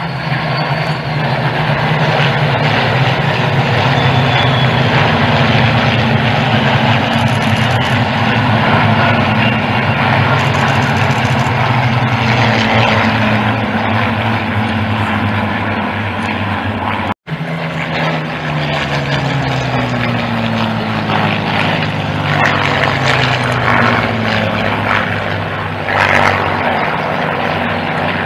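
A formation of Supermarine Spitfires flying past, their V12 piston engines a loud, steady, multi-engine drone. After a brief break partway through, the engine note falls in pitch as the aircraft pass by.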